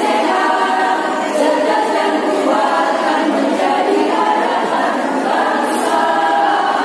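Women's choir singing an Indonesian march song together, holding long notes.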